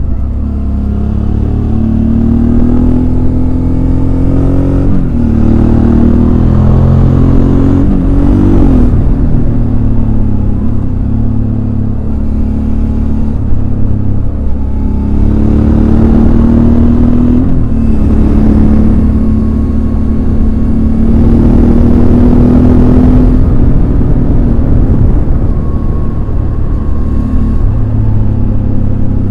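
Suzuki DL650 V-Strom's V-twin engine under way, its note rising and falling as it accelerates and eases off, with several quick drops in pitch. A heavy low rumble runs underneath.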